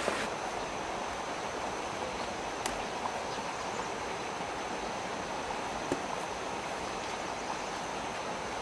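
Heavy rain falling in a steady hiss, with a couple of sharp clicks.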